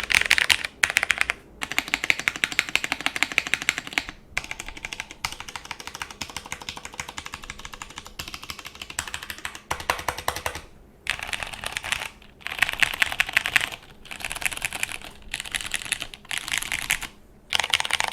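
Rapid typing on a plateless mechanical keyboard with lubed vintage Cherry MX Brown switches and doubleshot keycaps. It comes in fast runs of keystrokes with short pauses between them, about ten times.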